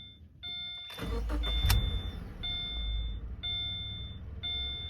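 Car engine cranking and catching about a second in, then running at idle, while a dashboard warning chime repeats about once a second. The engine starts and keeps running after the aftermarket kill-switch box was removed and its cut wires reconnected.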